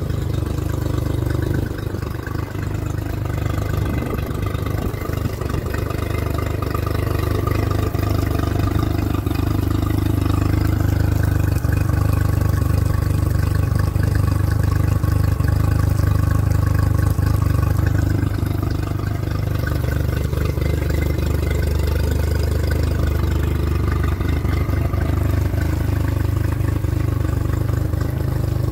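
Small Honda four-stroke outboard motor running steadily on the trailer, cooled through flushing muffs fed by a garden hose, a little louder in the middle.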